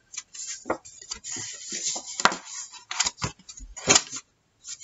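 Sheets of cardstock rustling and scraping as they are handled and folded on a cutting mat, with two sharp taps, about two seconds in and near the end.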